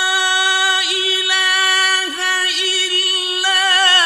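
Male reciter's voice in mujawwad (melodic, elongated) Quran recitation, holding one long note with a few brief ornamental turns in pitch.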